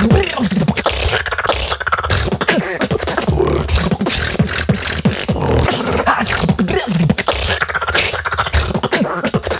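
Solo vocal beatboxing in a dubstep style: a fast run of sharp snare and hi-hat clicks over deep bass hits and low, sliding bass sweeps made with the mouth and throat.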